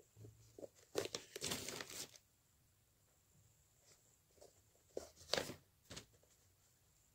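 Rustling and scratching of hands handling a crocheted yarn doll while sewing its hair on with a needle: a cluster of noisy scrapes about a second in and another around five seconds in.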